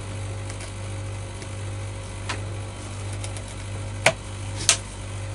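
A scalpel cutting around a pheasant's leg joint down to the bone gives a few faint ticks over a steady low hum, with two sharp clicks about four seconds in and half a second later.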